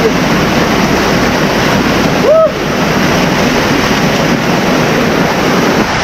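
Waterfall close by: a loud, steady rush of falling water. A person gives one short vocal sound about two and a half seconds in.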